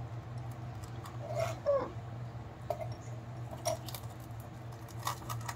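Knife cutting through a crisp tava-baked pizza on a metal tray, giving a few faint clicks, over a steady low hum. A few brief falling calls sound faintly in the background.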